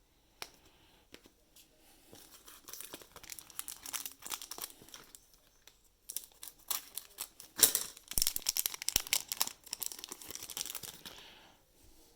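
Plastic wrapper of a trading-card pack crinkling and tearing as the pack is opened, in two spells of irregular crackling, the second louder.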